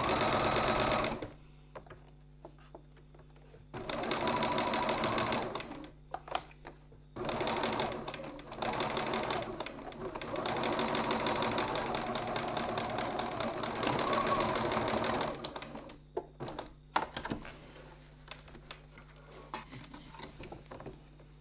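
Sewing machine stitching a seam in several stop-start runs, the longest lasting about five seconds, with pauses between them. Near the end it stops and only a few scattered clicks and handling sounds remain.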